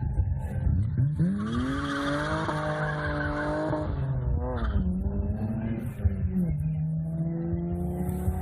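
BMW 3 Series engine revving hard through a corner, its pitch climbing steeply about a second in and holding high with tyre squeal over it. It drops off around the middle and climbs again near the end.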